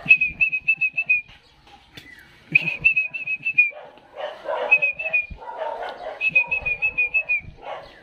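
A person whistling a fast warbling call to summon a pet bird, in four runs of about a second each at a steady high pitch, each dipping slightly at its end. Rougher, lower sounds come in the gaps between the runs.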